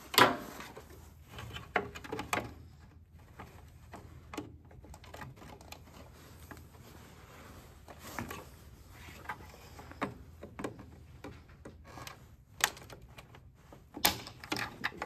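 Scattered clicks and knocks of plastic and metal as needle-nose pliers and fingers work at a small snap-in plastic protective cover in a Hypertherm 85 plasma cutter's housing, pushing in its locking tabs to pop it out. The sharpest click comes just after the start.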